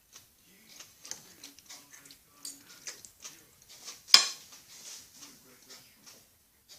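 Irregular light clicks and taps, with one much sharper click about four seconds in.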